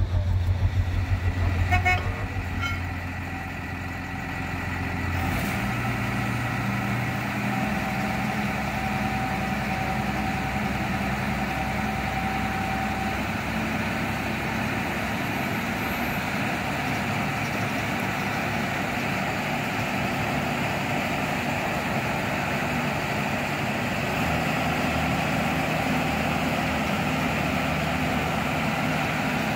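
A heavy vehicle engine running: a low, evenly pulsing idle for the first two seconds, then a steadier, higher running sound from about five seconds in. A couple of light knocks sound about two seconds in.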